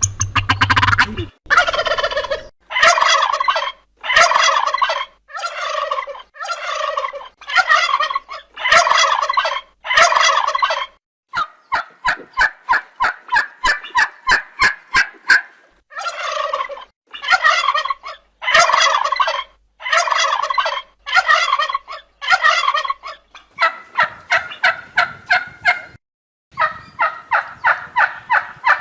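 Turkey gobbling over and over: short rattling gobbles about one a second, with longer unbroken runs of rapid rattling in the middle and near the end.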